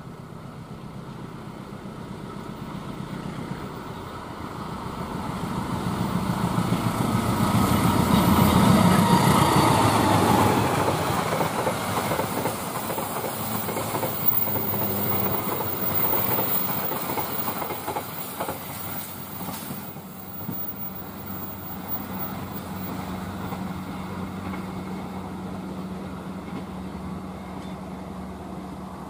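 Indonesian KAI passenger train hauled by a CC206 diesel-electric locomotive approaching at speed and passing, loudest about a third of the way in as the locomotive goes by, its pitch falling. Then the coaches rattle past with wheels clacking over the rail joints, and the sound eases off as the last coach recedes.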